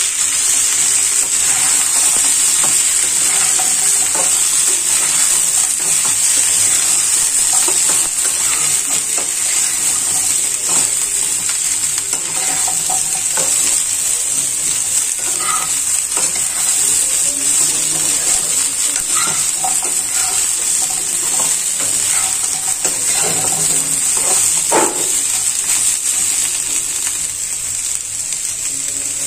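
Mixed vegetables sizzling in oil in a non-stick kadai with a steady frying hiss. A metal spatula stirs them, giving scattered scrapes and taps against the pan.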